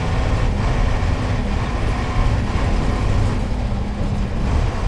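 Mercedes-Benz OF-1721 bus's OM-366LA inline-six turbodiesel running, a steady low rumble.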